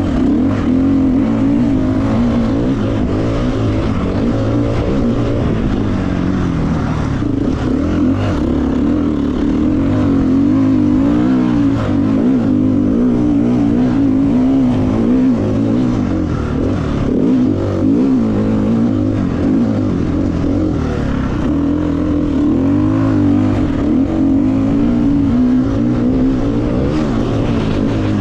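Motocross bike engine being ridden hard, its revs rising and falling again and again, heard close up through an onboard GoPro camera.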